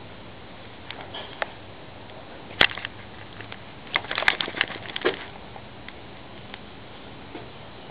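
Handling noise from a handheld camera being moved: scattered clicks and rubbing, with one sharp click about two and a half seconds in and a busy cluster of clicks and rustles around four to five seconds in, over a steady hiss.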